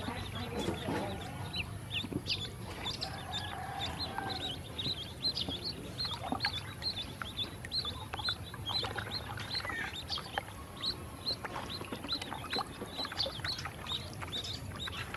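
A brood of ducklings peeping without pause: short, high, downward-slurred peeps, several a second, overlapping from many birds.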